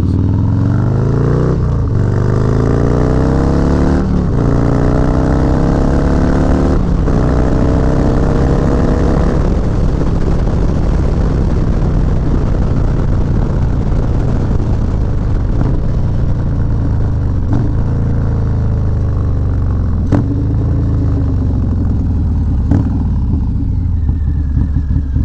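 Harley-Davidson Low Rider S V-twin through a Bassani Road Rage 3 two-into-one exhaust, accelerating hard through the gears: the engine pitch climbs and breaks at upshifts about 2, 4 and 7 seconds in. It then runs steadily at cruising speed, backing off and picking up again briefly around 18 to 21 seconds.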